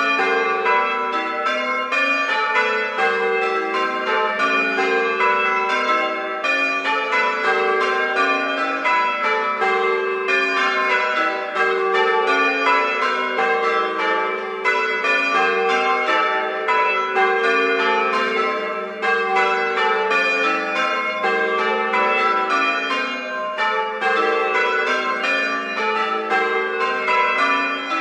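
A peal of bells rung in quick succession, many strikes a second, each ringing on into the next and sounding continuously.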